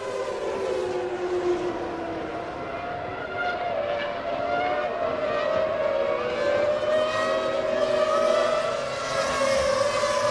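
Formula One race car engine running at high revs, its pitch holding high and wavering with small rises and dips, with a brief dip near the end.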